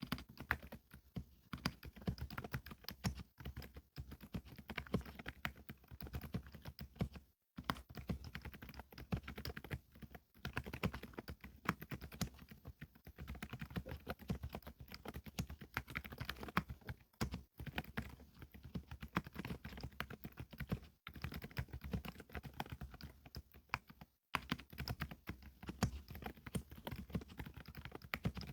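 Typing on a Qsenn Q104LCD full-size mechanical keyboard with MMD silent Princess switches (32 g low-force) and cherry-profile keycaps: a fast, continuous run of soft keystrokes, broken by a few short pauses.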